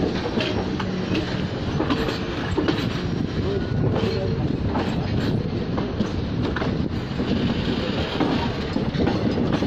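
Passenger express train running steadily, heard from the side of a moving coach: a continuous rumble of steel wheels on the rails, with scattered short clicks and knocks as the wheels run over the track.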